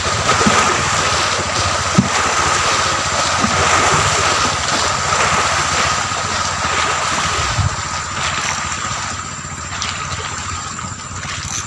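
Wind buffeting the microphone over the sound of water, with a steady high-pitched tone running through it and a few faint knocks.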